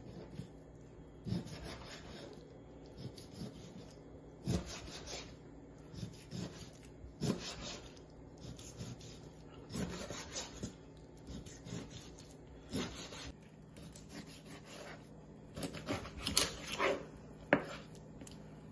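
Kitchen knife sawing crosswise through a skinned barracuda and its backbone, cutting it into bone-in steaks: a rasping stroke every second or two, with a few sharper knocks of the blade on the cutting board near the end.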